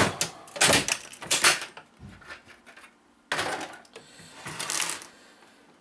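Clattering of an Xbox 360's plastic casing and metal chassis as the top shell is lifted off and the parts are handled: a cluster of sharp clacks and knocks in the first second and a half, then more rattling handling about three and a half seconds in and again near the end.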